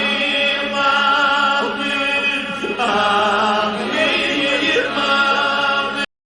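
Chanted singing with musical accompaniment, a steady low tone held beneath the melody; it cuts off suddenly near the end.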